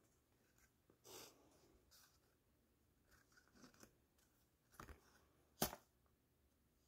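Near silence with faint handling sounds of fingers working a small glued paper cut-out: a soft rustle about a second in and a few small clicks and taps, the sharpest a little past halfway.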